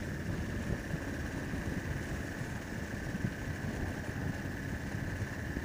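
Motorcycle being ridden at a steady pace: the engine runs under steady wind and road noise, with a thin, steady whine above it.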